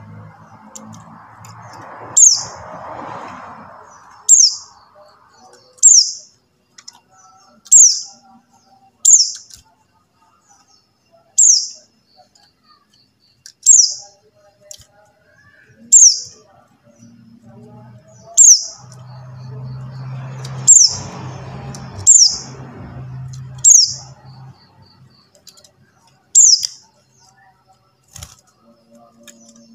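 Pleci buxtoni white-eye giving one short, sharp, high call that slides downward, repeated over and over about every one and a half to two seconds.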